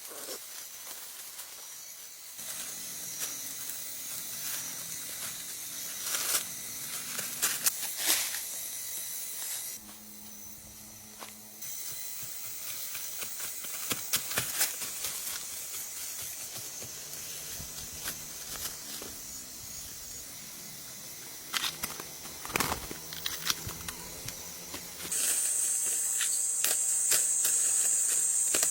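Outdoor ambience: a steady high hiss, like insects, with scattered clicks and rustles. A louder, steady high buzz joins a few seconds before the end.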